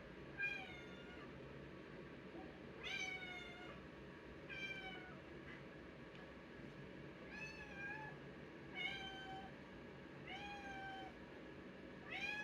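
A cat meowing repeatedly, about seven short, high meows spaced a second or two apart.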